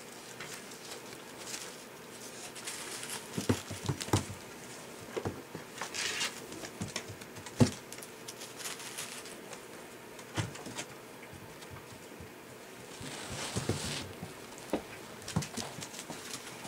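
Six-week-old golden retriever puppies moving about in wood-shavings bedding: scattered rustling with irregular sharp knocks of paws against the wooden pen boards, the loudest knock about seven and a half seconds in.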